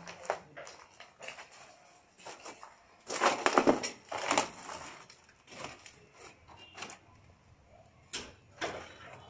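Irregular crunches and knocks of broken brick and plaster rubble, with a loud cluster of crunching a few seconds in and scattered single cracks around it.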